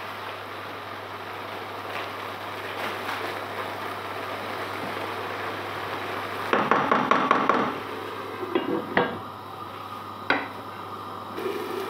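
A wooden spoon stirring courgette curry in a granite-coated pot over a steady hiss of cooking on high heat; a bit over six seconds in, it scrapes and knocks against the pot in a quick run of strokes. A few more knocks follow, the sharpest a little after ten seconds, as the lid is set on the pot.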